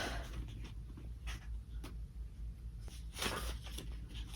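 Faint, intermittent rustling of paper: a few soft, short brushes and rustles as a book's pages are handled.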